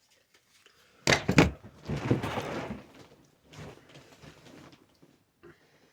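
Handling noise: a quick cluster of sharp knocks about a second in, then a few seconds of rustling and scraping as objects are moved about on a surface.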